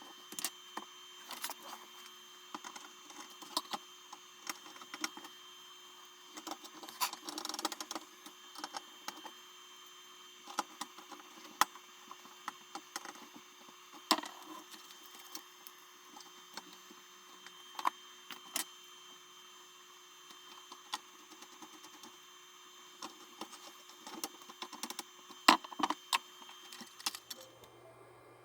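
Irregular small clicks and light taps, like things being handled on a workbench, over a faint steady hum that stops near the end.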